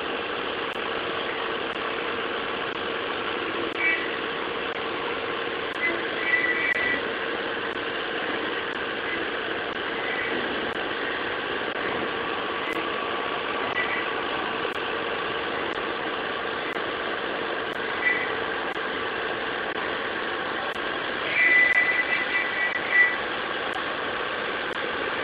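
Five-axis CNC machining center milling a metal workpiece under coolant: a steady machine whine with several held tones, broken every few seconds by short, higher squeals from the cutter, the longest run of them near the end.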